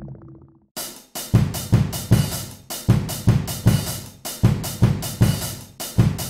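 Drum kit playing a steady rock beat, kick and snare with cymbals, about two to three hits a second: the opening of a backing music track, starting about a second in.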